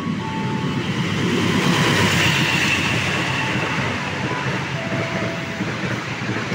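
Argo Parahyangan express train running straight through the station at speed without stopping: continuous rumble and clatter of its coaches' wheels on the rails, loudest about two seconds in.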